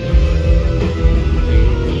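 Live blues-rock band playing: electric guitars over bass guitar and drums, loud and continuous.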